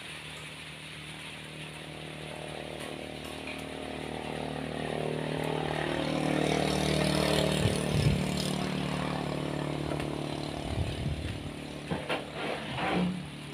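An engine passing by: its hum swells to a peak about seven seconds in and fades away again. A few short knocks come near the end.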